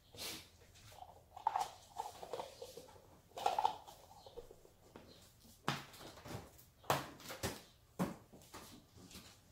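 A plastic LOL Surprise capsule and small wrappers being handled at a table: scattered clicks, taps and crinkles, with a cluster of sharper clicks in the second half.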